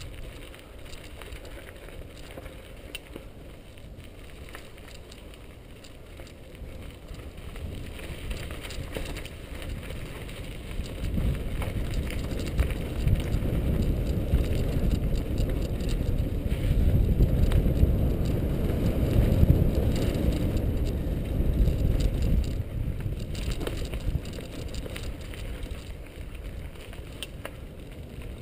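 Mountain bike rolling fast down a dirt singletrack: tyres on loose dirt, small rattles and clicks from the bike over bumps, and wind rumbling on the camera microphone. The rumble grows loud partway through and eases again near the end.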